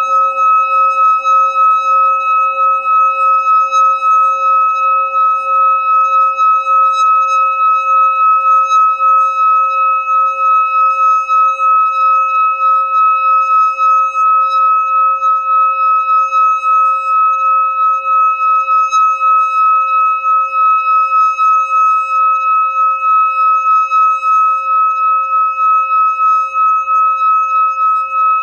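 Hand-held metal singing bowl sung by rubbing a wooden stick around its rim: one sustained ringing tone with several overtones, wavering in an even, fast pulse as the stick circles.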